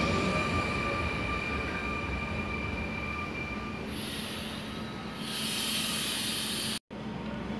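SNCF electric regional train running past and moving away, its steady whine fading out about three seconds in over a falling rumble. A hiss follows from about five seconds, and the sound cuts off abruptly near the end.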